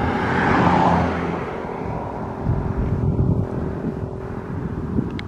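A car driving past close by, its engine and tyre noise swelling and fading within the first second or so, followed by a lower, uneven rumble.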